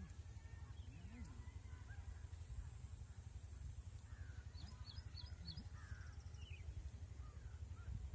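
Crows cawing faintly over a low outdoor rumble, with a quick run of about five high bird chirps a little under five seconds in.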